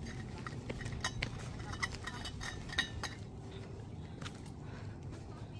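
Light clinks and clicks of small hard objects, several in the first three seconds and sparser after, over a steady low background.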